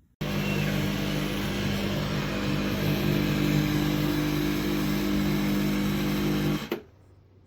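Sage Barista Express espresso machine running: a loud, steady motor hum with a broad rushing noise that starts abruptly and cuts off sharply after about six and a half seconds.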